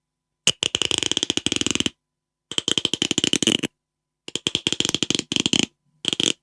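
Rapid rattling trains of clicks, about a dozen a second, in four bursts of a second or so each with short silent gaps between them: a clicking sound effect.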